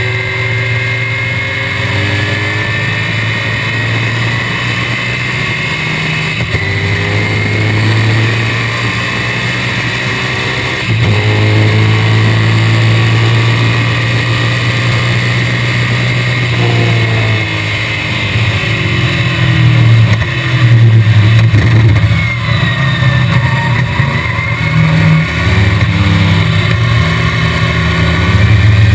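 1965 BTM Cheetah roadster's Chevrolet small-block V8 at racing speed, heard from the open cockpit. The engine runs hard and gets louder about a third of the way in, drops in pitch in a run of falling steps a little past halfway, then surges on and off in short bursts near the end.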